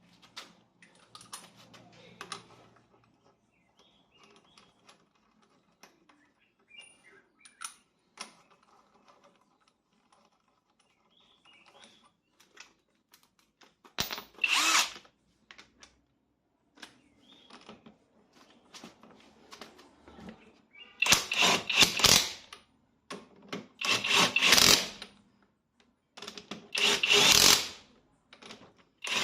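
Power impact wrench spinning on the wheel nuts in short bursts of about a second each, beginning about halfway in after some faint clicks and handling noise.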